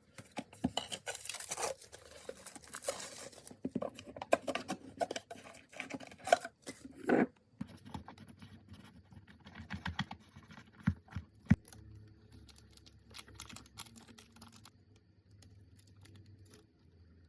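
Food packaging being torn open and crinkled, with rustling for the first few seconds followed by scattered clicks, taps and scrapes of handling containers.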